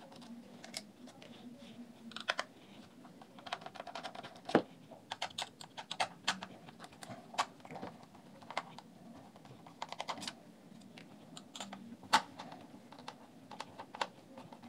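Small screwdriver working loose the screws of a loudspeaker driver set in a plastic speaker frame: irregular light clicks and taps of metal on screw heads and plastic, with a couple of sharper knocks.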